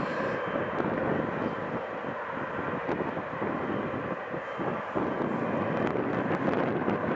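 Boeing 777-300ER's GE90 turbofan engines running at taxi power: a steady rushing jet noise with a faint whine.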